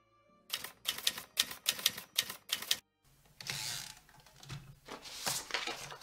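Typewriter keys being struck in a quick run, about four strikes a second, then after a short break more scattered strikes over a hiss.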